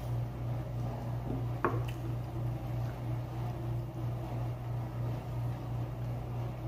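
Wet eating sounds: chewing and fingers picking at fish on a plate, over a steady low hum. A single sharp click comes about one and a half seconds in.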